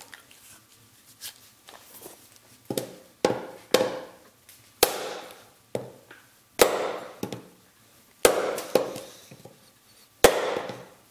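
A fiberglass-handled camping hatchet is struck hard against a wooden stump again and again, about ten heavy knocks spaced irregularly, starting about three seconds in. It is an abuse test of the handle's toughness.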